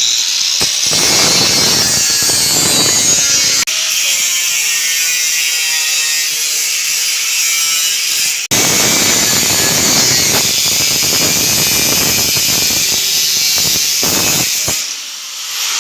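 Handheld power tool cutting through the sheet-metal side of a cable tray: a loud, high, hissing whine that breaks off briefly about four seconds in and again near eight and a half seconds, then fades out near the end.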